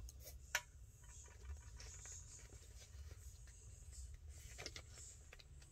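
Faint handling of paper on a craft table: light rustles and taps, with one sharp click about half a second in and a couple of soft taps near the end.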